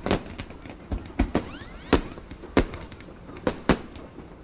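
Fireworks going off: about seven sharp bangs at irregular intervals, some close together in pairs.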